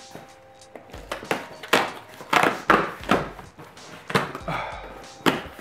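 A cardboard shipping box being opened: its packing tape is slit and peeled off in a run of short ripping and scraping strokes, about two a second.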